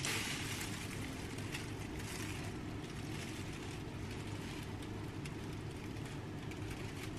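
A steady low hum, with faint crinkling of a plastic bag as a sauce is squeezed out of it onto a tray of vegetables and chicken.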